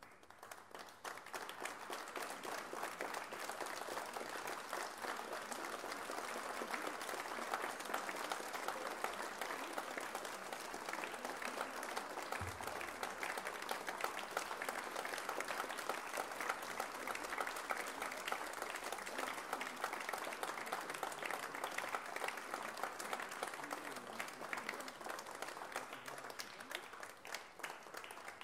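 Audience applauding, the clapping building up over the first couple of seconds, holding steady, then easing slightly near the end.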